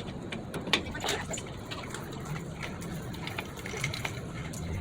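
Scattered light metallic clicks and taps of drum brake parts being handled and seated, the sharpest about three-quarters of a second in, over a steady hiss.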